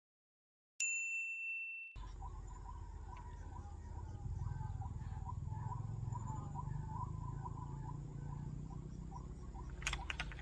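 A single bell-like ding, ringing for about a second. It is followed by dusk creekside ambience: a low rumble, a thin steady high insect drone, and many short chirping animal calls.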